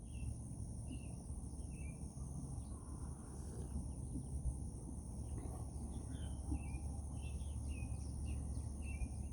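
Outdoor nature ambience: a steady high-pitched insect drone, with a bird chirping repeatedly in short calls, over a low steady rumble.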